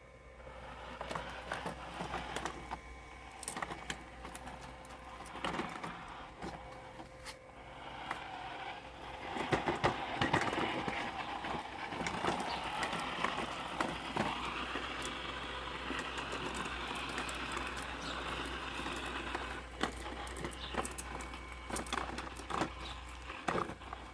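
Parkside robotic lawn mower working through cluttered garden growth. Its running is mixed with many sharp clicks and knocks, and it grows busier and louder about nine seconds in.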